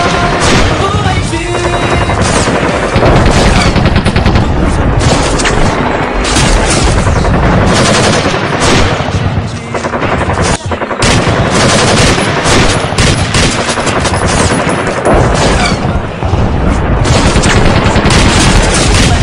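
Bursts of rapid machine-gun fire sounds from toy rifles, almost continuous with a couple of brief breaks, over background music.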